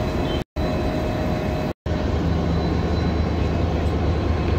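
Train standing at a station platform: a steady, noisy running sound that drops out briefly twice, joined about two seconds in by a low steady drone.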